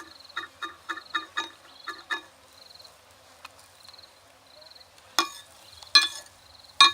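Quick ringing metallic clinks of a kitchen utensil, about three a second for two seconds, then three louder, sharper clinks near the end, over an insect chirping steadily at a high pitch.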